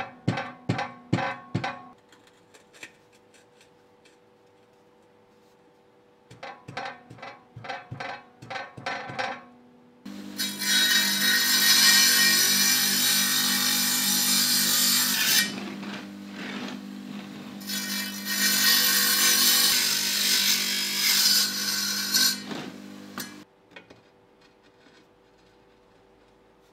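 Electric tile saw running and cutting through a firebrick in two long passes: a loud hiss of the blade in the brick over the motor's steady hum, with a short break between cuts while the motor keeps running. The saw then shuts off abruptly. Before the saw starts, there are two short runs of quick rhythmic tapping.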